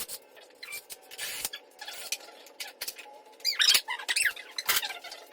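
Fast-forwarded workshop audio: voices sped up into a high-pitched chipmunk chatter, with quick clicks and clinks of tools and parts during a dirt bike teardown.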